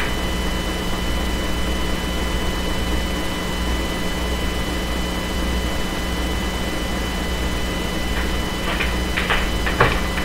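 Steady hiss and electrical hum of an air traffic control radio feed with nobody transmitting, with a few faint clicks near the end.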